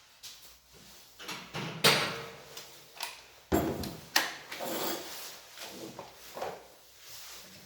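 Chainsaw and its packaging being handled and slid about while unboxed: a series of scrapes, rustles and knocks, loudest about two seconds in.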